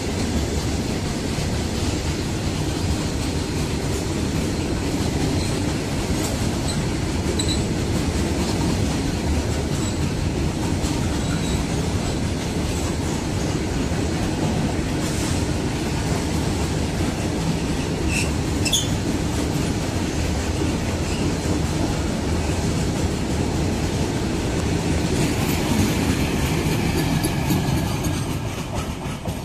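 An empty rake of open freight wagons rolling past, a steady rumble and clatter of wheels over the rails with a few brief high wheel squeals. The sound falls away near the end as the brake van passes.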